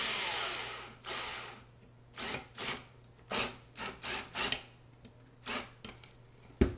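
Cordless drill driving a quarter-20 bolt into a PVC pipe: a run of about a second that winds down, another short run, then a string of brief trigger bursts as the bolt is snugged. A single sharp knock near the end.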